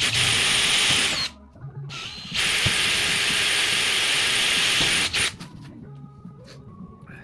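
Power drill boring holes through a mounting bracket, in two runs, the first about a second long and the second about three seconds, with a steady high whine over the cutting noise.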